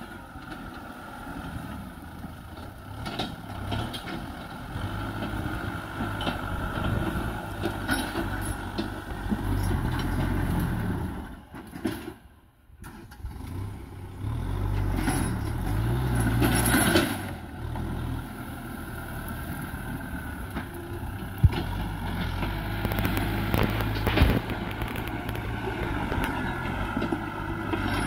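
Kubota M6040 tractor's four-cylinder diesel engine working under load through dry brush, its note rising and falling. The sound briefly almost drops out about halfway.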